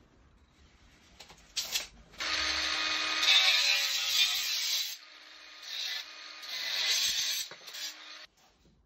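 Angle grinder cutting through a metal blind guide rail: a loud hiss from the disc in the metal with a faint whine. It starts about two seconds in, eases about halfway, rises again and cuts off just before the end.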